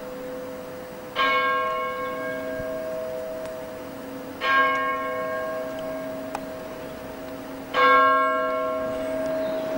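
A single large bell tolling slowly, struck three times about every three seconds. Each stroke rings on and its hum carries into the next.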